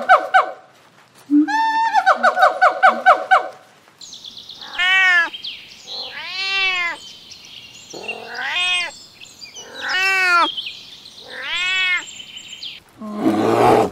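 A gibbon's song for the first few seconds: a rising note breaking into a fast run of repeated, sliding notes. Then a cat meows about five times, one long meow every second and a half or so, over a faint high hiss. Near the end, a short rough growl.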